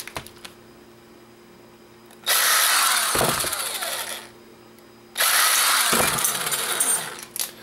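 Cordless power screwdriver running twice, about two seconds each with a short pause between, backing small screws out of a camcorder's metal tape mechanism.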